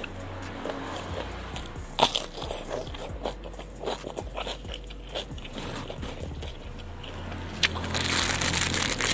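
Crisp biting and chewing of raw cucumber close to the microphone, with a sharp crunch about two seconds in. The chewing gets louder and denser near the end.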